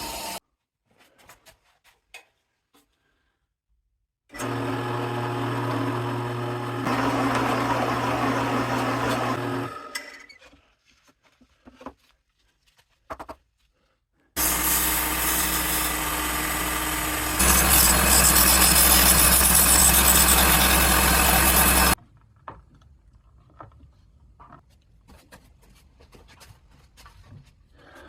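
Electric woodworking router run twice for several seconds each, with a steady motor hum that gets louder partway through each run; the first run winds down, the second cuts off abruptly. Faint clicks and knocks of handling fill the gaps.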